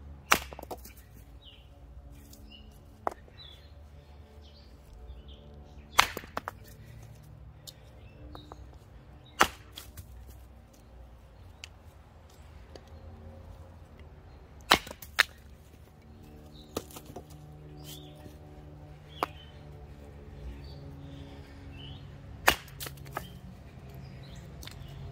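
Hatchet blade chopping into a piece of split wood resting on a stump, shaping it to a point: single sharp chops every few seconds, about six loud ones, two of them close together, with a few lighter knocks in between.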